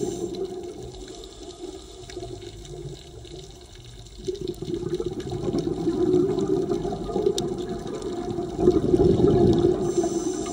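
Underwater rush and gurgle of a scuba diver's exhaled bubbles from the regulator. It is weaker for the first few seconds, then swells and surges on from about four seconds in.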